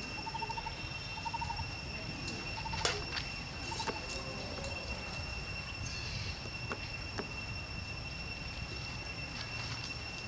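Outdoor ambience with a steady high-pitched whine and a low rumble, a short trilling chirp repeated four times in the first four seconds, and a few light clicks as a macaque handles an empty drink can.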